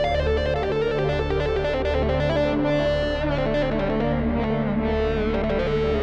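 Roland Juno-X polyphonic synthesizer playing a fast melodic line over low bass notes.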